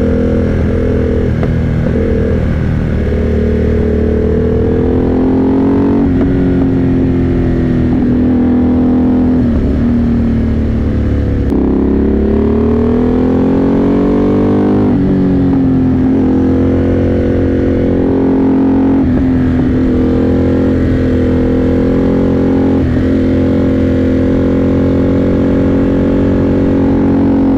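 Motorcycle engine under way, its revs climbing and dropping several times as the rider accelerates and changes gear, over a steady low rumble.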